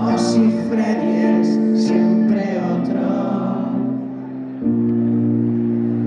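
Live band music from an electric keyboard and electric guitar playing held chords in an instrumental passage; the sound dips briefly and a new chord comes in loudly about four and a half seconds in.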